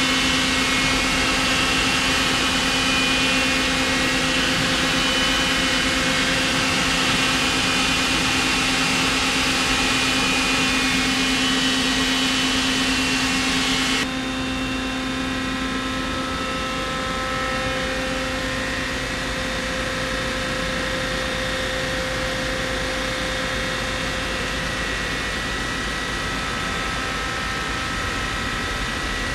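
Miyano LM-11 four-spindle CNC lathe running: a steady machine hum with a strong low tone and fainter, higher steady whines. About halfway through the sound drops abruptly in level, and the low tone fades away soon after.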